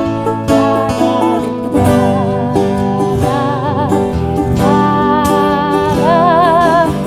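Plucked bouzouki and acoustic guitar playing, joined about halfway through by a female voice holding long sung notes with vibrato.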